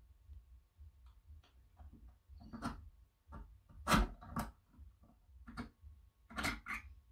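Light, irregular metallic clicks and taps of needle-nose pliers on a small steel coil spring and rod as the spring is worked along the rod. The loudest click comes about four seconds in, with a couple more near the end.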